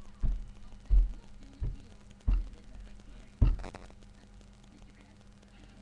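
Five dull thumps of feet stomping on the floor while dancing, about two-thirds of a second apart, the last and loudest about three and a half seconds in, over a faint steady hum.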